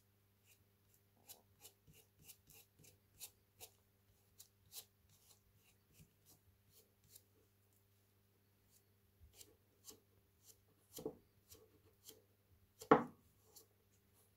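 Gloved fingers handling a wooden trowel handle and working filler paste onto it: scattered small clicks and rubbing sounds, with a louder knock near the end.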